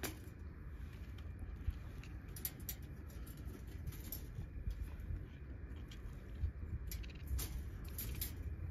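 Wire cage trap rattling with a few scattered light metallic clicks as a rabbit is handled inside it, over a steady low rumble.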